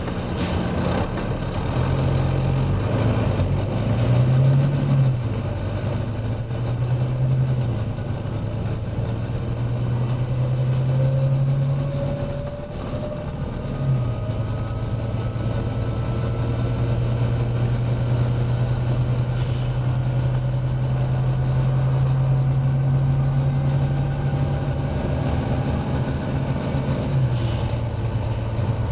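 Volvo B9TL double-decker bus's six-cylinder diesel engine heard from on board. Its note rises and falls through gear changes in the first half, then pulls at a steady pitch at speed and eases off near the end. A faint slowly rising whine runs through the middle, and there are two short air hisses.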